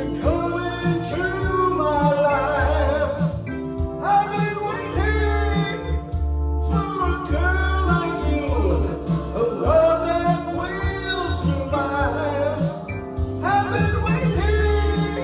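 Man singing a slow rock ballad into a microphone over electronic keyboard accompaniment, with sustained chords and a deep bass. The sung lines come in phrases with short breaks between them.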